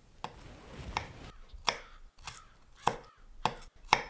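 Chef's knife chopping vegetables on a wooden cutting board: about seven sharp, evenly paced knocks, a little more than one a second.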